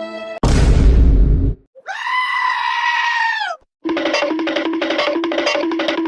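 A string of meme sound effect clips in quick succession. A pitched tone cuts off about half a second in and gives way to a loud, bass-heavy noise burst lasting about a second. About two seconds in comes a single long, held bleating scream, and from about four seconds a short piece of rhythmic music with repeating notes.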